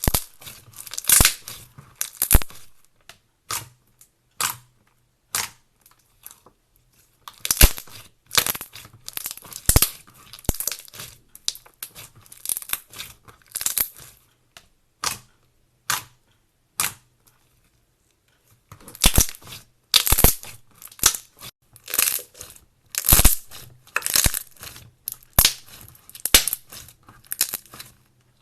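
A crunchy material being squeezed and broken by hand: irregular crackling and crunching with sharp snaps, coming in clusters with short pauses, the longest about two seconds past the middle.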